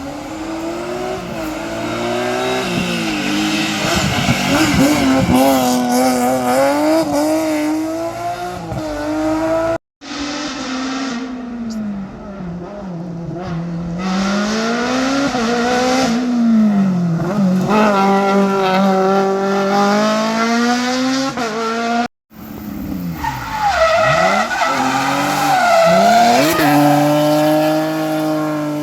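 Race car engines on a slalom course, revving up and dropping over and over as the cars brake and accelerate through the chicanes. The sound breaks off abruptly twice, at the cuts between three separate runs.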